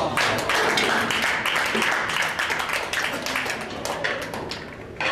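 Small crowd of spectators applauding after a rack is won in a nine-ball match. The clapping is dense at first and thins out over about four seconds.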